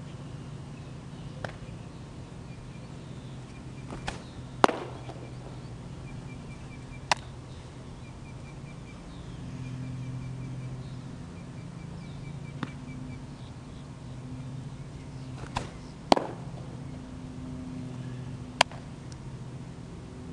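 Baseball pitches popping into a leather catcher's mitt: two loud, sharp cracks about eleven seconds apart, each with a lighter click half a second before it. Fainter single snaps of ball on glove fall in between. A steady low hum and faint chirping run underneath.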